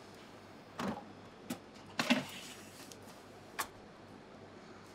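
About five light clicks and knocks, spread a second or so apart, from handling a countertop oven as the gratin dishes are loaded into it.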